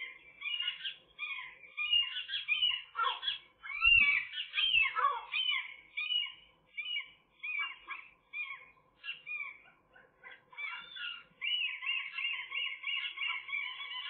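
Gulls calling: a rapid string of short calls that rise and fall in pitch. About eleven seconds in, this turns into a steadier, continuous calling.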